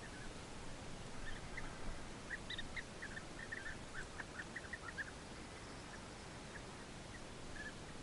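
European bee-eaters calling: a quick run of short, liquid call notes from about one second in to about five seconds in, over a steady outdoor hiss.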